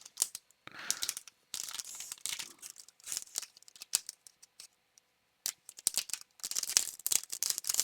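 Trading cards being handled and flipped through: quick paper slides, taps and rustles in scattered bursts, falling silent for about a second past the middle, then a denser run of rustling near the end.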